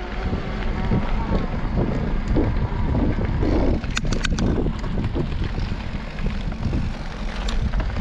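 Wind rushing over the microphone and knobbly mountain bike tyres rolling over a gravel trail. A quick cluster of sharp clicks comes about four seconds in, with another click near the end.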